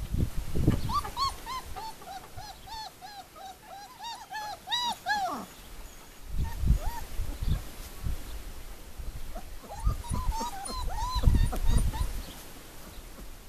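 Four-week-old puppies whining: a quick run of short, high, rising-and-falling cries, about three a second, lasting several seconds, then a second shorter run near the end. Low thumps come in between.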